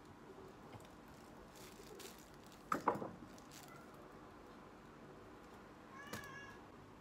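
Short pitched animal-like cries over faint room hiss: a loud double cry about three seconds in and a brief higher cry near the end.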